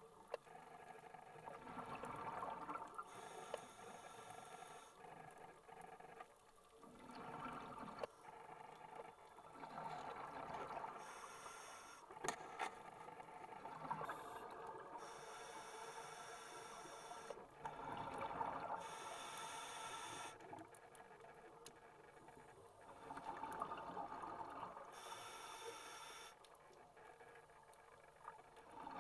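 Faint underwater sound of a scuba diver breathing through a regulator: the hiss of each breath and the rush of exhaled bubbles, coming in slow cycles about every five seconds.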